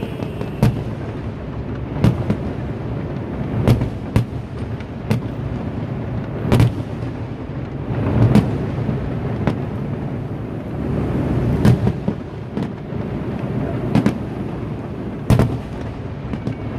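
Fireworks display: a dozen or so sharp bangs of bursting shells at uneven intervals, over a steady low background rumble.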